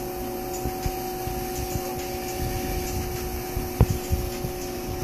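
A steady machine hum with a few held tones, under soft handling knocks and one sharp click about four seconds in.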